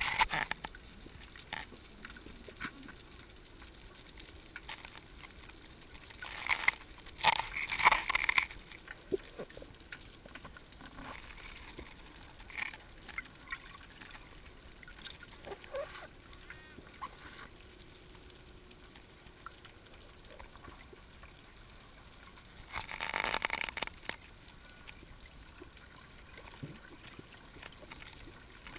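Underwater recording: a faint steady hiss with scattered small clicks, and louder bubbling gurgles twice, first about six to eight seconds in and again about twenty-three seconds in.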